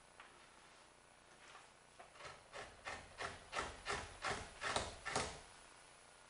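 Fleshing knife scraping fat off a raccoon hide on a fleshing beam: a quick run of about a dozen pushing strokes, about three a second, starting about two seconds in and growing louder.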